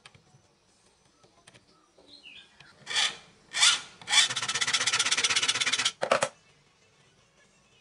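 A steel ruler scraping against a steel square and a hard tabletop: two short scrapes, then a steady, even rasp of nearly two seconds, and a last short scrape.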